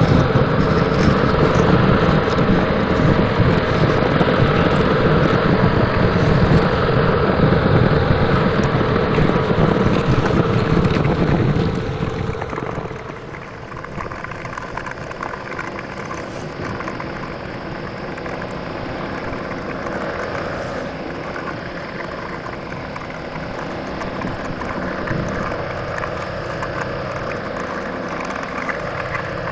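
Truck engine sound running hard under load, then dropping about twelve seconds in to a quieter, steadier low running like an idle.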